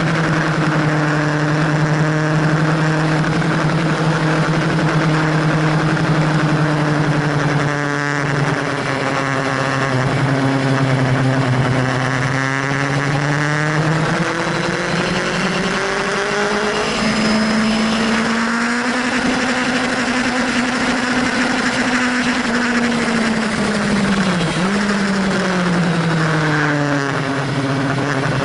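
Sport motorcycle engine running hard at track speed, heard from on the bike with steady wind rush. Its note holds a steady pitch, breaks briefly about eight seconds in, rises gradually from about halfway, dips sharply once near the end and then falls.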